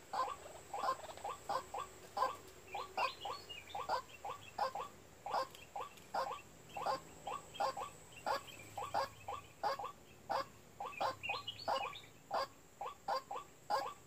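White-breasted waterhen calling its ruak-ruak call: a long, unbroken run of short, clipped notes, about two or three a second and often in pairs.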